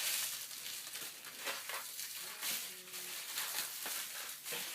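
Plastic wrapping and tape rustling and crinkling as it is handled and pulled off new chrome scooter bars, with a few small knocks.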